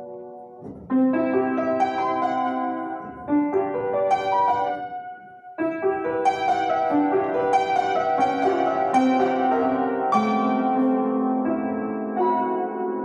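Upright piano being played: a piece in phrases of melody over chords, with brief dips in loudness before new phrases open strongly about a second in and again about five and a half seconds in.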